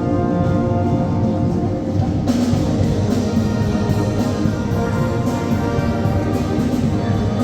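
Brass band (banda filarmónica) playing sustained chords. Percussion comes in with a steady beat about two seconds in.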